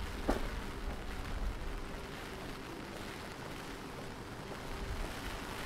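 Steady rain on a city street: an even hiss with a low rumble underneath, and one sharp tap about a third of a second in.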